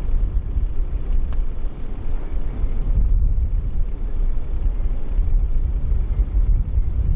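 Wind buffeting the microphone over a steady low rumble, typical of a ferry under way.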